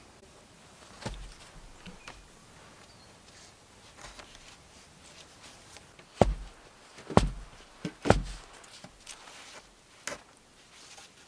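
A few sharp knocks and thumps between quieter handling noises, the loudest three coming about a second apart near the middle.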